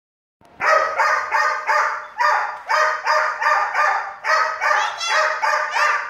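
Great Dane puppy barking in a rapid, steady string of short barks, more than a dozen of them at about three a second, starting about half a second in, with a few higher yelps mixed in near the end.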